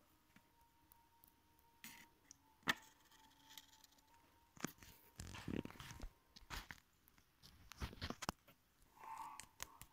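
Faint handling noises: scattered taps and clicks with a few brief rustles as small plastic toy figures and a paper sign are moved about on a wooden floor.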